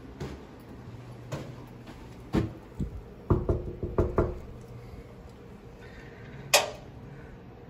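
A fist knocking on a hotel room door: a couple of single knocks, then a quick run of about five, and one sharp, louder crack near the end.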